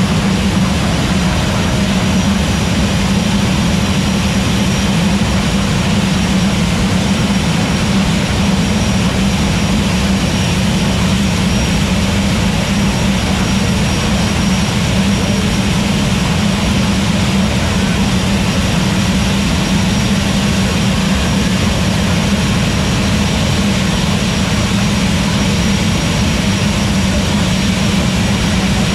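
General Electric J85 turbojet engines of jet funny cars running at the starting line. The sound is loud and steady, with no rise or fall in pitch.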